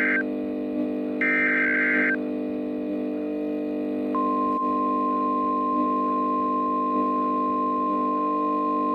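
Emergency Alert System SAME header data bursts, a harsh digital warble: the tail of one burst, then one more burst of about a second. About four seconds in, the NOAA Weather Radio 1050 Hz warning alarm tone starts and holds steady, announcing that a warning is about to be read. A low steady drone runs underneath.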